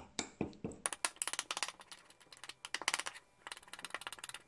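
A metal spoon stirring a thick oily paste in a small ceramic bowl, clicking and scraping rapidly against the bowl, with a brief pause a little past three seconds. Castor oil is being mixed into the paste until it blends.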